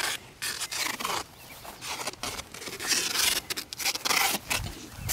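Footsteps swishing through long grass, with irregular scratchy rustling and a low thump near the end.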